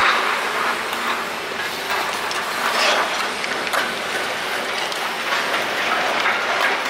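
BMX bike riding on concrete: tyres rolling and rattling over the skate park surface, with scattered clicks and knocks from the bike.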